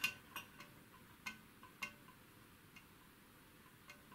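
Faint, irregular light metallic ticks and clicks, about eight in four seconds with a slight ring, from the small gears and metal parts of a disassembled Smiths altimeter mechanism being handled.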